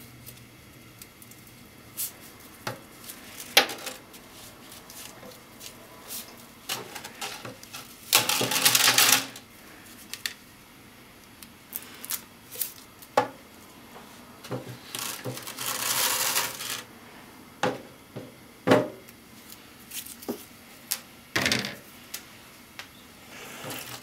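Thin sticks of dried noodles clicking and rattling against a clear plastic microwave noodle cooker in a stainless steel sink: scattered light clicks and taps, with two longer rattling stretches, about eight seconds in and again around fifteen to seventeen seconds.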